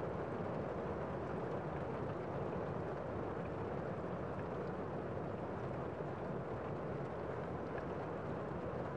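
Steady din of a crowded city street: crowd and traffic noise blended into one even wash that holds the same level throughout.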